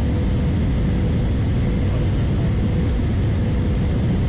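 Steady cabin noise of an Airbus A320-214 in flight: the even low rumble of its CFM56 engines and rushing air, with a faint steady whine above it.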